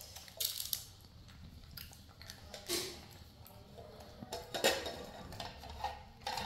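Light clinks and taps of tableware on a stone kitchen counter, from a ceramic bowl and metal tongs being handled. The taps come a few at a time and are scattered, with the sharpest about two-thirds of the way through.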